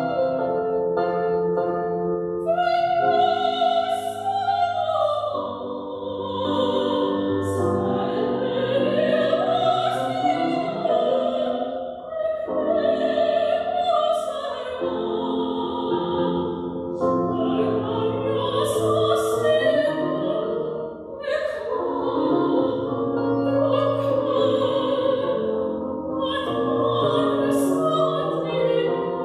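A woman singing in operatic style with wide vibrato, accompanied by sustained chords on a digital piano. The keyboard plays alone at first, and the voice comes in about three seconds in.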